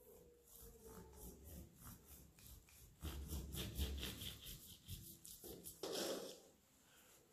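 A long knife sawing back and forth through a rolled brioche dough log filled with Nutella and chopped nuts, in faint rasping strokes that grow quicker and louder about three seconds in, followed by a couple of brushing sounds.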